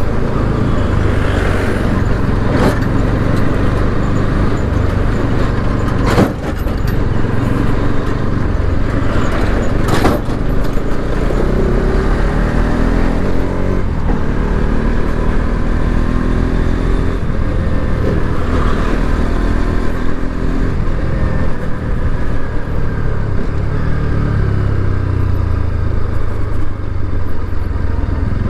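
Bajaj Pulsar RS 200's single-cylinder engine running as the bike is ridden, its pitch rising and falling with throttle and gear changes. Sharp clicks about six seconds in and again around ten seconds.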